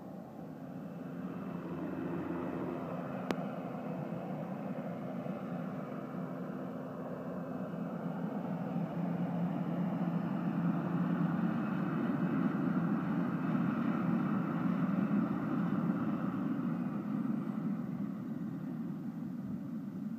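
Radio-controlled scale EC 135 helicopter's JetCat PHT 3 turbine running with its main rotor and fenestron, a steady whine and rotor noise that grows louder as the helicopter comes in low and close, then eases off near the end as it settles onto the grass. A single sharp click about three seconds in.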